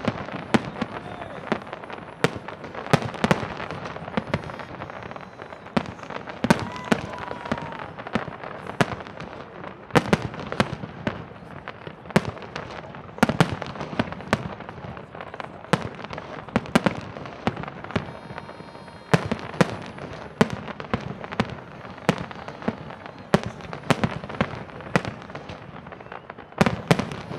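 Aerial fireworks shells bursting in a display: many sharp bangs in quick, irregular succession, often several a second, over a steady background of crackle and echo between the reports.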